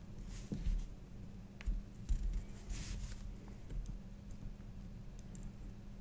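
Quiet hand soldering on a circuit board: faint clicks and handling of the board and soldering iron over a steady low hum, with a brief hiss about three seconds in.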